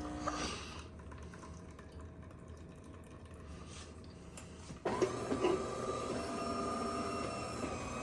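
Jenn-Air built-in coffee machine running quietly with a faint hum, then about five seconds in its motor or pump starts suddenly and runs on with a steady mechanical hum.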